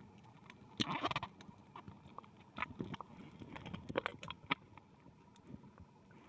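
Underwater pool sound picked up by the camera: irregular clicks and knocks, with a louder short rush about a second in.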